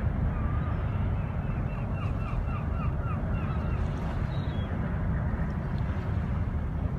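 Steady low rumble of a passing container ship and its assisting tug, mixed with wind on the microphone. About a second in, a bird calls a quick run of short repeated chirps, about three a second, for a few seconds.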